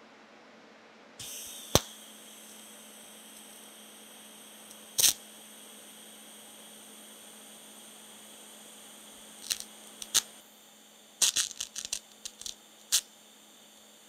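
TIG welding arc brazing cast brass at low amperage: the arc strikes about a second in and runs with a steady hiss and thin high whine over a low hum, broken by sharp crackles and clicks, a few early and a flurry near the end.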